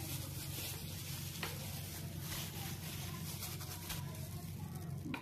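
Faint squishing and rustling of a plastic-gloved hand rubbing spice marinade onto fish steaks in a glass dish, over a steady low hum.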